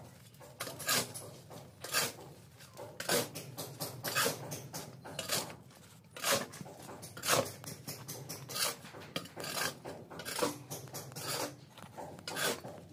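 Hands scraping and smearing wet cement mortar onto a PVC drain pipe joint, a rasping stroke about once a second, sealing the joint against leaks.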